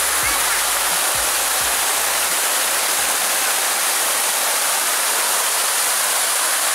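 Steady, loud rush of falling water that starts abruptly.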